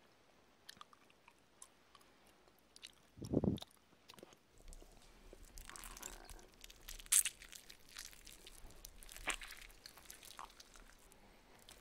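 Close-up biting and chewing of crunchy syrup-coated fruit slices: a loud dull thump about three seconds in, then scattered crisp crunches.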